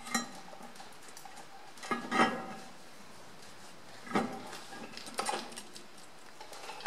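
Metal clunks and clinks as a Ferguson FE35 final drive (trumpet) housing is worked over the studs and seated against the rear axle centre housing. There are about four knocks, the loudest about two seconds in with a short ring.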